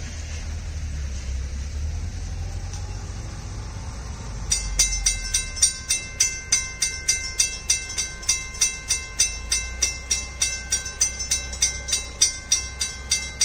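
Level-crossing warning bell starts about four and a half seconds in and rings steadily at about three strikes a second while the barriers lift. Before it there is the low rumble of the passing iron-ore train.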